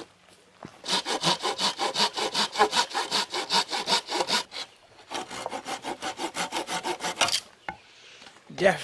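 Folding hand saw cutting through a dry, hard branch: two runs of quick back-and-forth strokes, about six a second, with a short pause between them.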